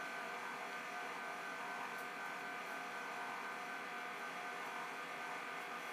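Steady hum and hiss with a faint whine held on one pitch, as from a small electric motor running.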